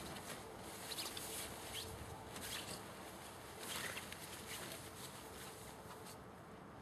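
Havanese puppies at play: short rustling scuffles, four or so in the first four seconds, over a faint steady hiss, growing quieter after about five seconds.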